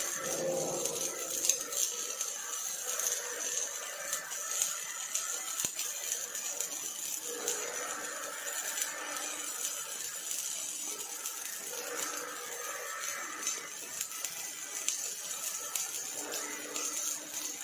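Robotic MIG welding arc running steadily: a continuous high hiss peppered with many fine, sharp crackles.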